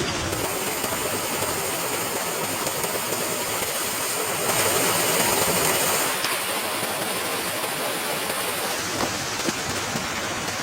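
Steady rushing of water, swelling for about a second and a half near the middle, with a faint high hiss over most of it.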